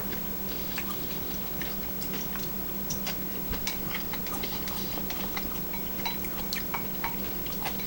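Mouth sounds of eating kelp noodles: chewing with many small irregular clicks, over a steady low hum.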